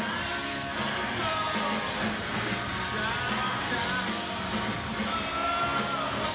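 Rock band playing live: distorted electric guitars, bass and drums, with singing over them. Heard from within the crowd.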